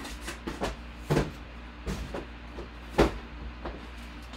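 Several short knocks and thumps of things being handled, the loudest about three seconds in, over a steady low hum.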